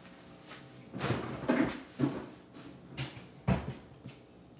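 Kitchen clatter of things being put away: a string of six or so irregular knocks and clunks, like cabinet doors and items being handled, starting about a second in.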